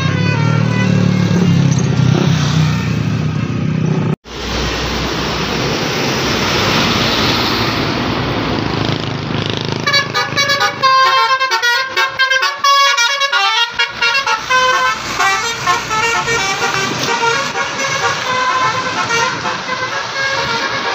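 Indonesian bus 'telolet' horns: multi-tone musical air horns playing short, rapidly repeated tunes from passing buses, over bus engine and traffic noise. The sound drops out abruptly about four seconds in, and the longest run of quick horn notes comes from about ten seconds in.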